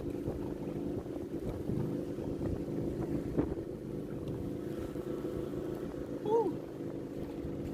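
Boat engine running steadily at a low, even pitch. A brief rising-and-falling tone sounds about six seconds in.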